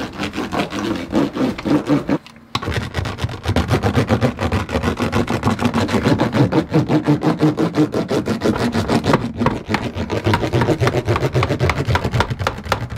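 Small hand roller pressed hard and rolled over foil-faced butyl sound-deadening mat (Silent Coat) on the sheet-metal floor, bonding it down: a rapid, continuous rubbing crinkle of the foil, with a short break about two seconds in.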